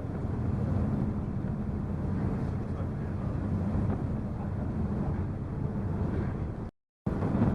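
Steady low drone of a ferry's engines, heard on board, with a constant hum under a rushing noise. It cuts out completely for a moment near the end.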